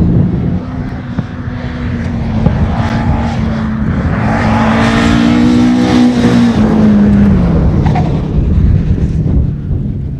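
Single-seat racing car's engine at full throttle, growing louder as it approaches and passes close by. Its pitch drops a little after halfway as it goes past.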